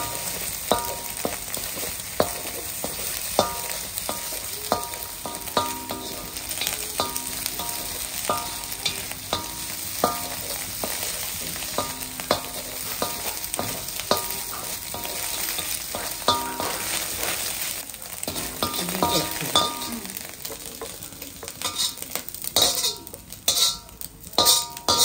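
Eggs sizzling as they scramble in a wide kadai, with a wooden spatula knocking and scraping on the pan about one and a half times a second, each knock ringing briefly. Near the end, louder and sharper clatter as the eggs are scraped out into a steel plate.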